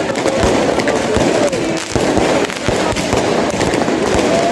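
Fireworks going off overhead in quick succession: many sharp bangs and pops at an irregular pace.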